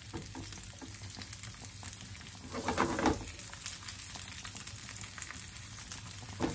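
Diced green and red peppers sizzling in a little oil in a nonstick frying pan while a silicone spatula stirs them. The sizzle is steady, with one louder stir about two and a half seconds in.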